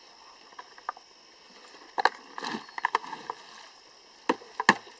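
Kitchen scraps tumbling out of a plastic 5-gallon bucket into a compost bin: a loose, wet rustle of falling vegetable peels and eggshells, with a few sharp knocks near the end.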